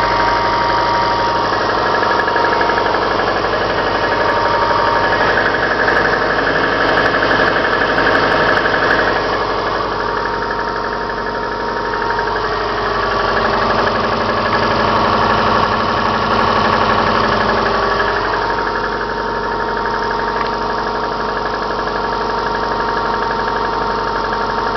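Subaru Forester's flat-four boxer engine running cold with a knock, its speed rising and falling a few times. The knock comes only when the engine is cold; the owner wonders whether it is the timing belt tensioner or a cylinder knocking.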